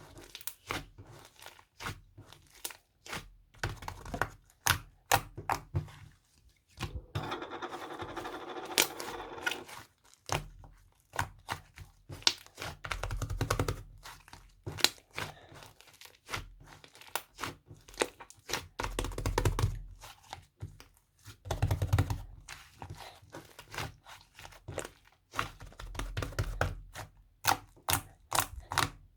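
Dalgona coffee being whipped by hand: a whisk or spoon beating the thickening coffee, sugar and water mixture, with quick irregular clicks against the bowl and soft sticky thuds.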